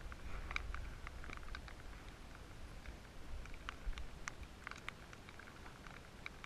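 Light rain pattering in many small, irregular ticks, over a low rumble.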